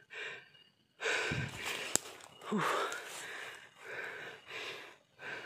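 A man breathing hard while hiking uphill through brush, with noisy breaths about once a second. There is a short sharp click about two seconds in.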